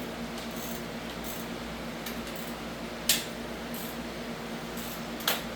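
Light metallic clinks of tools and engine parts being handled, with two sharp clinks about three seconds and five seconds in, over a steady background hum.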